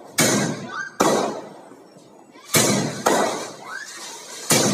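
12-shot sky shot aerial firework firing shot after shot: about five sharp bangs, spaced from half a second to a second and a half apart, each dying away quickly.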